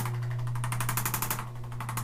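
Motorized chiropractic treatment equipment running: a steady low electric hum with a rapid, even mechanical buzz on top that cuts out briefly near the end.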